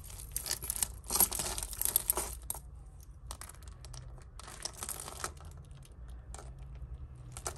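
Rustling and crinkling of plastic bags with small clinks and clicks as costume jewellery is handled and untangled, busiest in the first two and a half seconds, then sparser.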